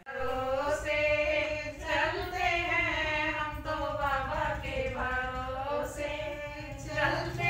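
A woman singing a melody in long, drawn-out notes, beginning suddenly, over a steady low hum.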